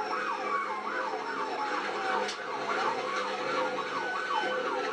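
Police car sirens in a pursuit: a fast yelp sweeping up and down about four times a second, overlapping a second siren's slow falling wail, over steady road and engine noise.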